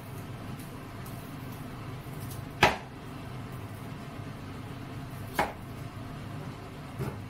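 Kitchen knife chopping a peeled potato on a cutting board: two sharp knocks of the blade hitting the board, about three seconds apart, the first louder, and a fainter one near the end. A steady low hum runs underneath.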